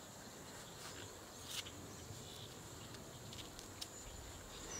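Insects chirring in a steady high drone, with a few faint ticks and a short rustle about a second and a half in.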